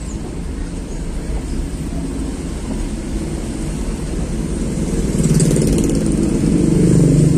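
A car engine running as the vehicle creeps along, heard from inside the cab, with a motorcycle engine passing close and growing louder about five seconds in.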